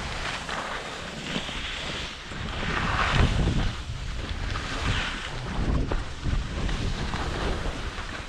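Skis hissing and scraping over snow, swelling in surges every couple of seconds as the skier turns, under the rumble of wind buffeting the microphone at speed.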